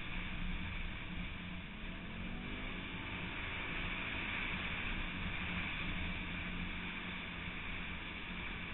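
An off-road vehicle's engine running steadily as it drives along a snow-covered track, its pitch shifting slightly about two seconds in.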